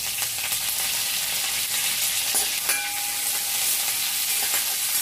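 Hot oil sizzling and crackling in a stainless steel kadai as curry leaves go into a tempering of mustard seeds, urad dal and green chillies. A slotted metal spatula stirs and scrapes the pan.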